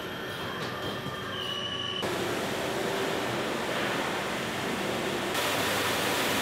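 Steady machine noise of a crate-handling line: roller conveyors and a brush crate washer running as plastic tulip crates move through. The noise steps up abruptly about two seconds in and again near the end.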